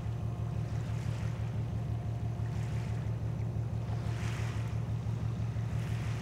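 A steady low engine drone with a fast, even pulse, with washes of hiss about every second and a half like small waves lapping.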